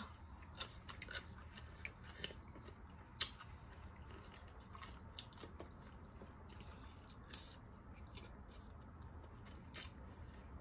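Close-up mouth sounds of chewing a bite of Thai cucumber salad (tam taeng): soft wet smacks and scattered short clicks, with a few sharper clicks about three and seven seconds in and again near the end.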